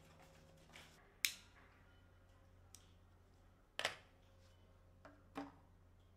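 Faint handling sounds while a strip of paper is lit and dropped into a plastic bottle. A sharp click about a second in, a short scrape near four seconds and another near five and a half, over a low steady hum.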